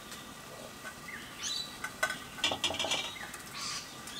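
A metal lid-lifter hook scraping and clinking against the ash-covered cast-iron lid of a camp oven as the lid is worked loose, with a few sharp clinks about two to three seconds in. Birds chirp briefly now and then.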